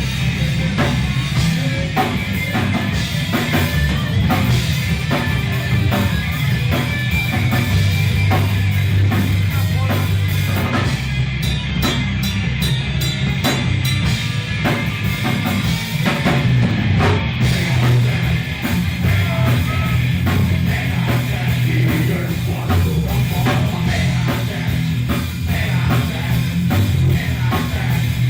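Rock band playing heavy metal, with drum kit hits and a heavy low end.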